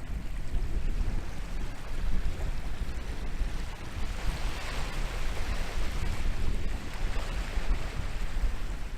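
Atlantic waves breaking and washing onto the shore, one wave's wash swelling about halfway through, with wind buffeting the microphone in a steady low rumble.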